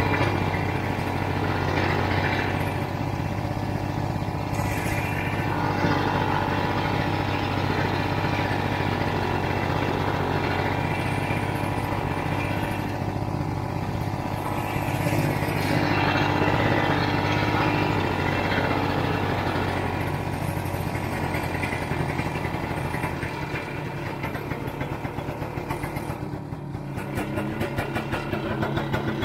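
Snowmobile engine running steadily while riding, easing toward an idle a few seconds before the end and then picking up again.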